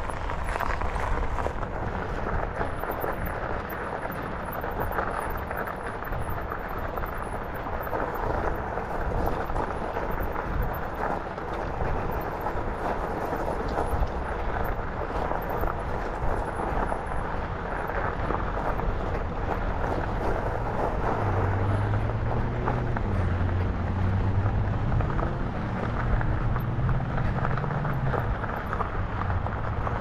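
Steady rushing of wind on the microphone and tyre noise from a bicycle being ridden. About two-thirds of the way through, a low hum comes in, rises and falls a little for several seconds, then fades.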